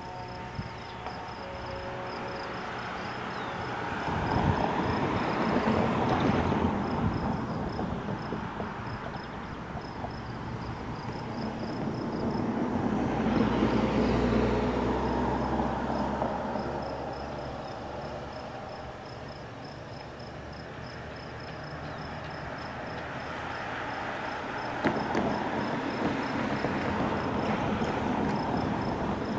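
An insect chirping in rapid, even pulses, over a rushing noise that swells and fades twice, about five and fourteen seconds in, and builds again near the end.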